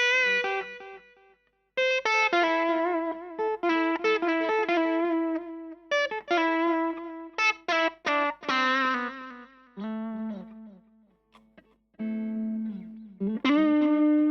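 Electric guitar, a Fender Stratocaster, played through a Vox AC4TV valve amp with delay: short single-note phrases with bends and a little drive, broken by brief pauses about a second in and again past the middle.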